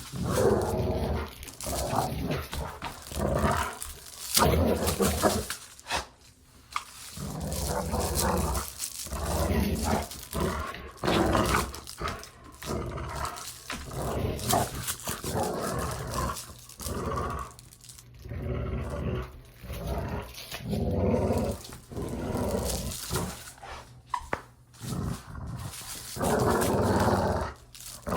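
A dog growling in play, in a run of rough, uneven growls with short breaks between them.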